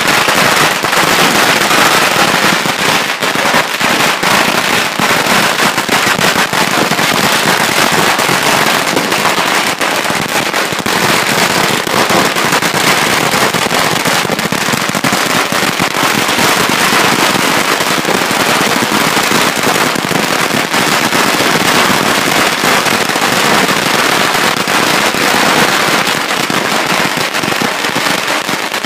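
Long strings of small firecrackers going off in a dense, continuous rapid-fire crackle of bangs.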